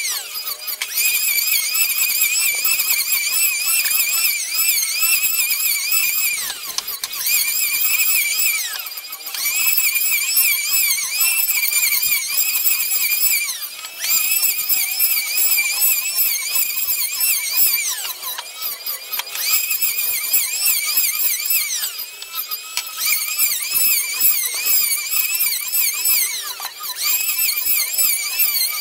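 Electric hand planer running as it planes a solid-wood tabletop: a loud, high-pitched motor whine that wavers in pitch as the blades bite, easing off briefly several times between passes.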